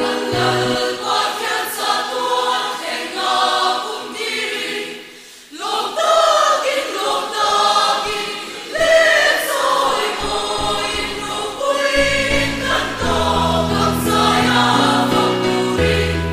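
Church choir singing; the voices fall away briefly about five seconds in, then come back in full.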